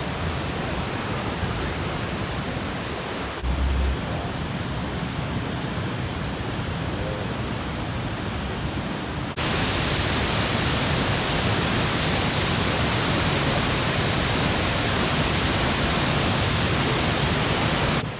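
Niagara Falls roaring: a steady rush of falling water. A brief low thump comes about three and a half seconds in, and about nine seconds in the roar turns abruptly louder and brighter.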